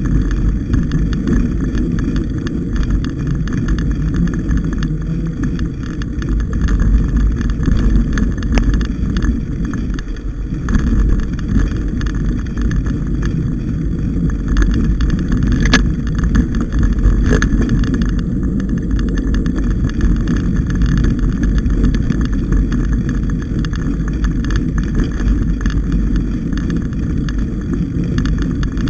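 Mountain bike riding along a forest singletrack, heard through the rider's onboard camera: a steady low rumble of wind buffeting the microphone and the bike jolting over the trail, with scattered rattling clicks and one sharper click about sixteen seconds in.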